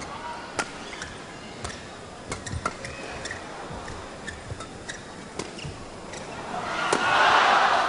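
Badminton rally: sharp racket strikes on the shuttlecock about once a second over a low arena crowd murmur. Near the end the crowd's noise swells up loudly.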